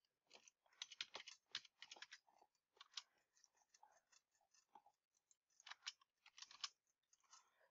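Faint computer keyboard typing: quick runs of key clicks with short pauses between them.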